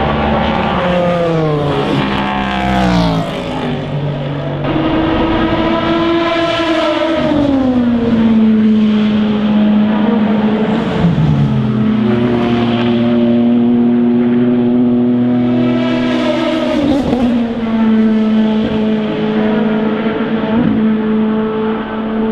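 Endurance race car engines passing one after another, each note dropping in pitch as the car goes by, with a steady engine note held between the passes.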